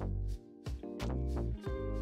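Background music with a steady beat: drum hits over pulsing bass notes and held chords.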